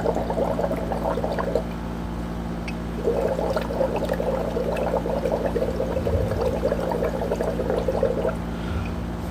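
Breath blown through a drinking straw into a container of water, bubbling in two bouts: the first stops about a second and a half in, the second runs from about three seconds to eight seconds in. A steady low hum runs underneath.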